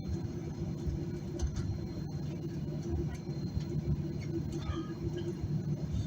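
Cabin of a Boeing 737-800 taxiing on the ground: a steady low rumble from its CFM56 engines at taxi power and the airframe rolling, with a few light clicks and rattles.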